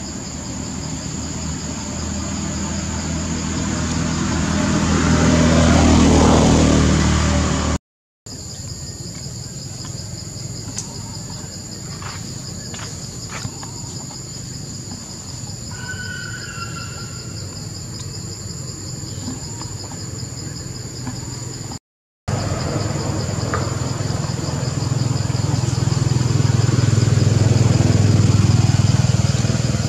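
Steady high-pitched insect drone from crickets or cicadas, with a motor vehicle passing twice, growing louder and fading, once in the first few seconds and again near the end. The sound cuts out briefly twice in between.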